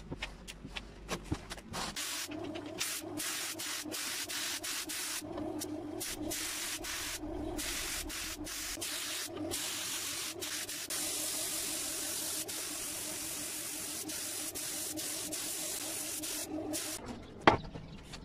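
Paint spray gun hissing in long passes with many brief breaks, over a steady low hum, as a lawn mower deck is spray-painted. One sharp knock near the end.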